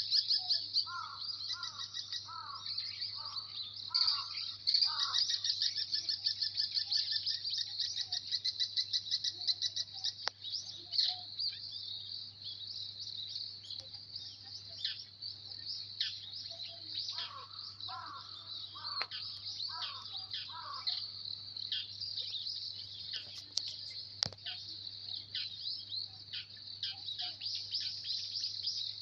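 Wild birds singing and calling together, with dense high chirping throughout. A bird's repeated lower whistled notes come in two bouts, near the start and again past the middle. A faint steady low hum runs underneath.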